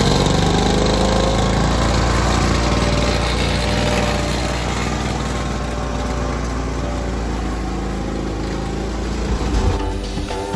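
Victa Turbo Disc two-stroke lawnmower engine running steadily at mowing speed while the mower is pushed across grass, growing slightly fainter near the end as it moves away.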